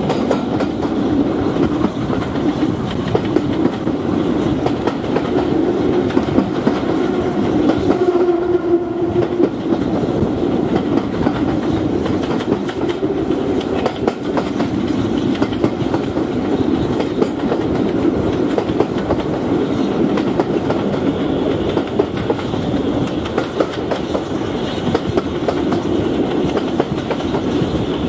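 Steam-hauled train running at speed, heard from an open carriage window behind BR 9F 2-10-0 steam locomotive No. 92214: a steady rumble and clatter of the carriage wheels on the rails mixed with the working locomotive's exhaust.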